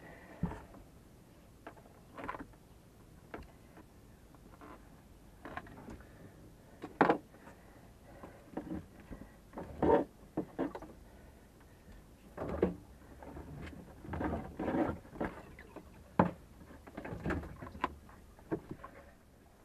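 Intermittent knocks, bumps and scraping rustles as old rubber freshwater hoses are worked loose and pulled out of a sailboat's engine compartment, with a few sharper knocks among them.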